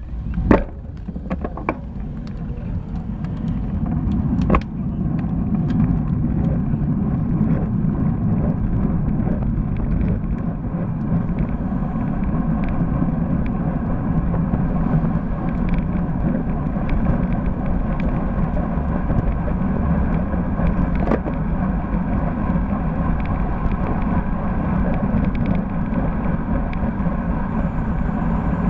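Wind and road noise buffeting a bike-mounted camera's microphone on a road bike. It grows over the first few seconds as the bike picks up speed, then holds as a steady rumble. A few sharp clicks come in the first five seconds.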